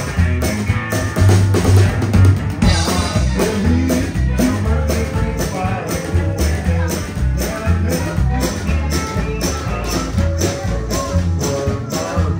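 Live band music: an upright double bass plucked under a steady drum-kit beat, with a melody line over them.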